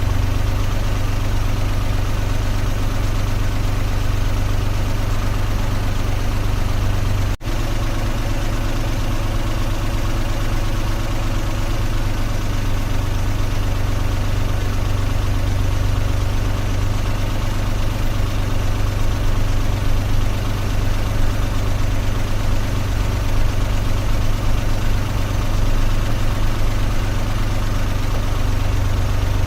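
Car engine idling steadily with a deep, even hum. It cuts out for an instant about seven seconds in, then carries on unchanged.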